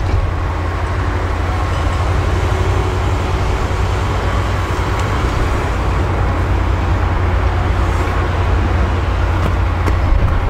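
An engine idling: a steady low rumble with an even hiss above it.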